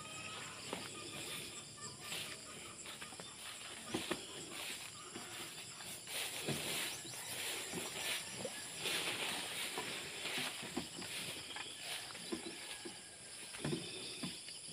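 Insects chirring steadily at a high pitch, with rustling of grass and leaves and soft footsteps as someone walks through garden vegetation.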